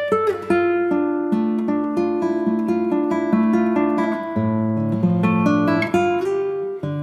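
Instrumental acoustic guitar music: plucked notes and chords, one after another at an even pace.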